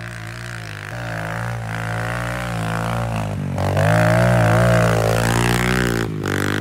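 Kawasaki KLX pit bike's four-stroke single-cylinder engine revving as the rider throttles through a drift in the snow. The revs rise and fall, the sound is loudest about four to five seconds in, and it drops briefly near the end before picking up again.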